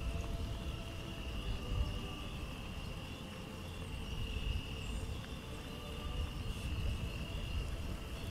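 Insects chirring steadily in a continuous high-pitched drone, over a constant low rumble.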